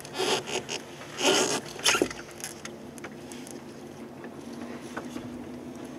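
Small boat's outboard motor running with a steady low hum, with a few short rustling noises in the first two seconds.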